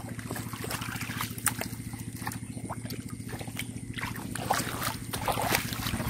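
Splashing and sloshing in shallow muddy water as a catfish is grabbed by hand, in short irregular splashes. A steady low hum runs underneath.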